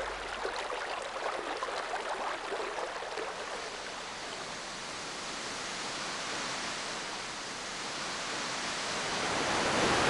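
Running water: a steady rushing hiss of a stream, with fine splashing and babbling in the first few seconds, swelling louder near the end.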